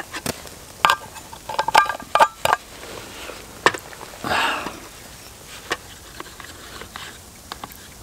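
Stainless steel camp cookware and a steel vacuum flask clinking and knocking as they are handled: several sharp metallic clinks with short rings in the first two and a half seconds, a brief rushing sound about four seconds in, then a few light taps.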